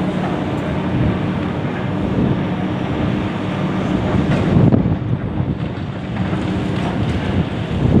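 High-reach demolition excavator's diesel engine running steadily under load while its demolition attachment crushes concrete at the top of the building, with a louder crunch of breaking or falling concrete about halfway through.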